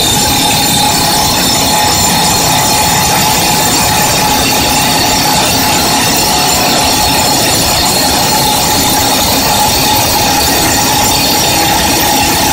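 FINE EX-Drill 300 excavator-mounted hydraulic rock drill hammering its drill rod into rock. It makes a loud, steady, rapid clatter with a high whine held over it throughout.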